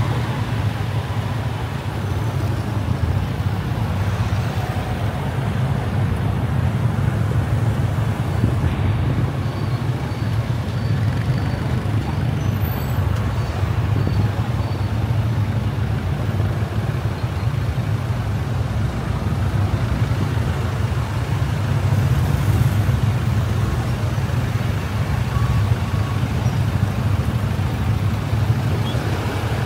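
A car driving through city traffic: a steady low rumble of engine and road noise.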